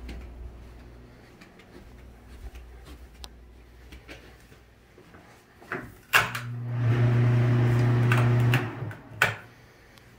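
A click, then a bathroom exhaust fan starts with a steady electrical hum and a rush of air, runs about two and a half seconds, and cuts off; a second sharp click follows shortly after.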